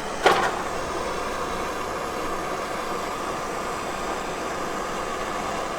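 Handheld gas blowtorch lit with a single sharp igniter click, then its flame burning with a steady hiss.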